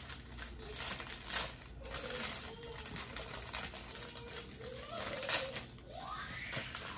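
Earring packaging being handled and crinkled as earrings are put back into it: a run of rustles and small clicks, the loudest about a second and a half in and again a little after five seconds.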